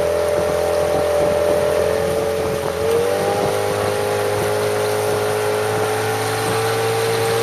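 Outboard motor of a following motorboat running steadily at cruising speed, its pitch dropping slightly about three seconds in and then holding.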